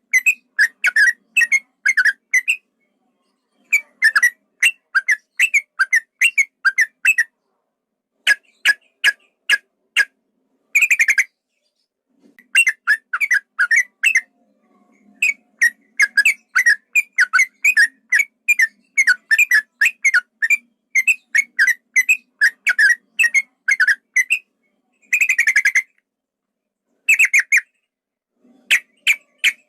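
Yellow-vented bulbul (trucukan) singing rapid runs of short, clear whistled notes, about four a second. The runs come in bursts separated by brief pauses, with a few harsher, scratchier notes mixed in.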